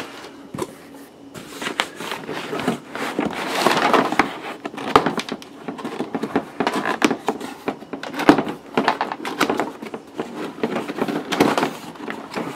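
Cardboard box and packaging being handled and opened by hand: irregular rustling and scraping with scattered knocks and clicks, the rustling loudest about four seconds in.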